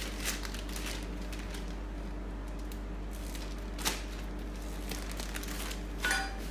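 Plastic parts bag crinkling and rustling as a clutch part is bagged, with a sharp click about four seconds in and a brief squeak near the end, over a steady low hum.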